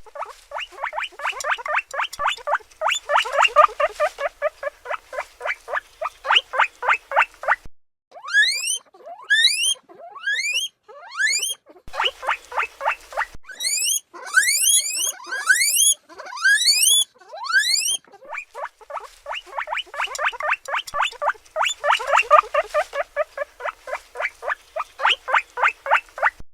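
Domestic guinea pig squeaking: quick runs of short, even squeaks at about four a second, broken in the middle by a series of rising, whistling squeals (wheeks), each sweeping upward in pitch.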